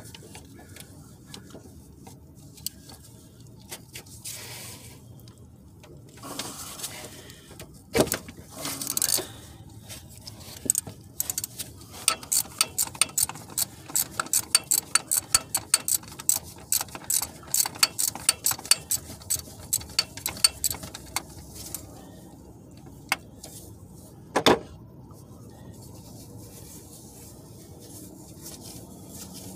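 Hand ratchet wrench clicking in a quick run for about ten seconds as it turns a fastener. A few sharp knocks of tools on metal come before and after it.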